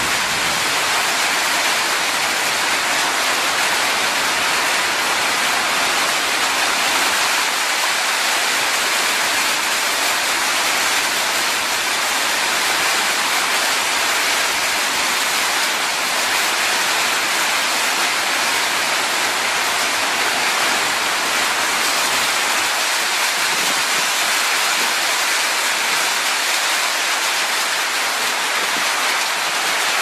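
Steady heavy rain: a loud, dense, even hiss, bright rather than deep, with no single drops standing out.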